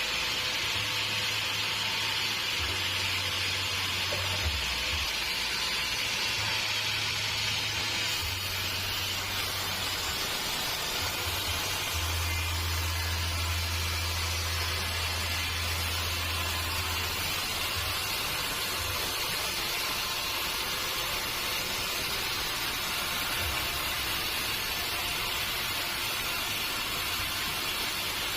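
Sawmill machinery running, a steady hiss with no distinct strokes or changes.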